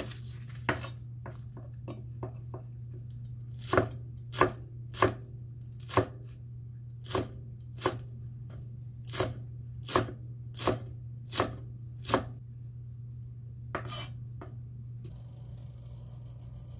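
Chef's knife chopping green onions on an end-grain wooden cutting board: sharp knocks of the blade against the wood, a few light taps and then firmer strikes about one a second, with a last strike about 14 seconds in.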